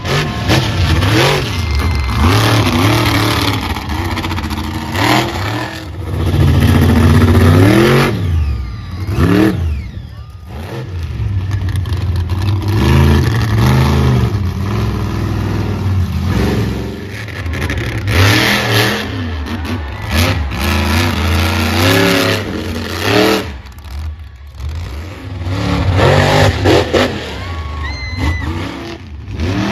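Monster truck engines revving hard, the pitch climbing and dropping again and again as the trucks accelerate and let off, with a few short lulls.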